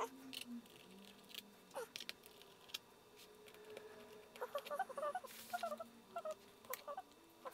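Faint small clicks and taps of a precision screwdriver and small screws on an aluminum MacBook Pro case and the table as the bottom-case screws come out. A run of short squeaks comes in from about halfway through.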